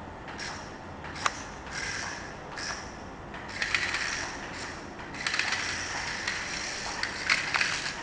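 Small toy RC stunt car's electric motors and gears whirring in short bursts as it drives and spins, with a sharp click about a second in. The bursts run longer and come closer together over the last three seconds.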